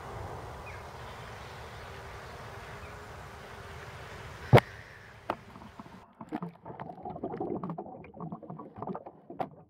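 Steady outdoor hiss of wind and water with a sharp click about four and a half seconds in, then from about six seconds the muffled, irregular knocks and sloshing of water heard through a bait-boat camera's waterproof housing.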